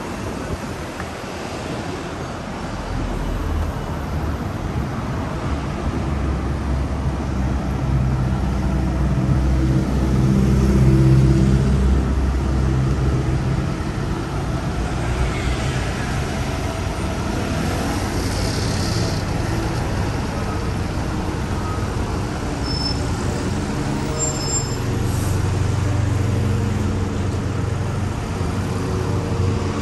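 Street traffic: cars and heavier vehicles such as buses passing, their engines a low hum that swells about ten seconds in and again later on.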